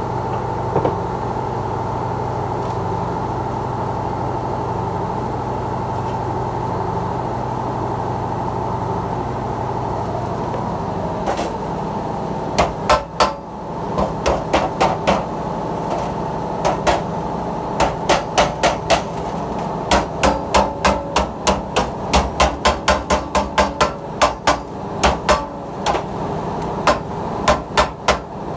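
Wooden mallet beating galvanized sheet steel over a steel square-tube form, folding the edge of a sheet-metal tray. There is a steady hum at first; the blows start about twelve seconds in and come in runs of quick strikes, about two to three a second.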